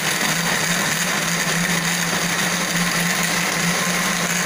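Electric countertop blender running steadily, its motor humming as it blends kuini mango pulp and milk into a smooth liquid.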